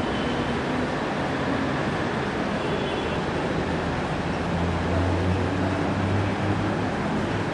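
Steady background noise with a low hum, no distinct events; the hum grows a little stronger about halfway through.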